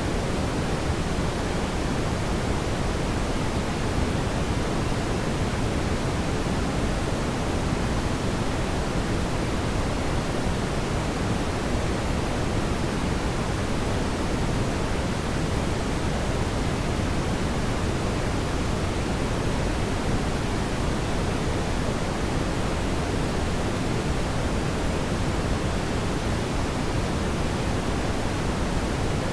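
Steady, even rushing noise with no distinct pops or crackles.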